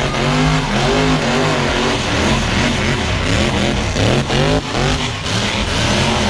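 Car engine revving hard and repeatedly, its pitch swinging up and down about every half second, over a steady rushing noise.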